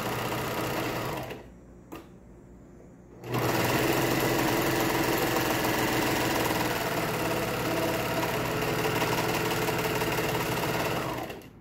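Bernina 1150MDA serger running, stitching a lettuce edge along stretched knit fabric. It stops about a second in, with a single click in the pause, starts again after about two seconds and runs steadily until it stops near the end.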